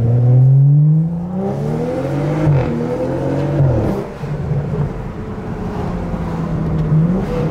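BMW 435's turbocharged straight-six through a newly fitted aftermarket exhaust that still has its muffler, heard from inside the cabin. The engine note climbs under acceleration with a brief dip partway, falls away about four seconds in, holds a steady cruising note, then starts rising again near the end.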